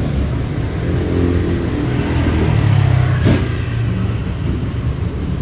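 A motor vehicle's engine running close by, a steady low rumble that swells a little around the middle, with a short click a bit over three seconds in.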